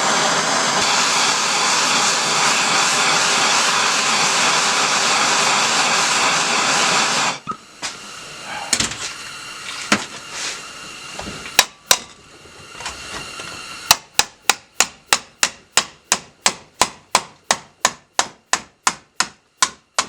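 Propylene torch flame hissing steadily, cut off about seven seconds in. Then come scattered hammer blows on thick steel sheet, settling near the end into rapid, even hammering of about three strikes a second.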